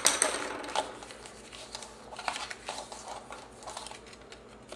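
Cardstock being scored and handled on a plastic scoring board: a few sharp taps of the bone folder at the start, then light rustling and small clicks as the paper is lifted and folded.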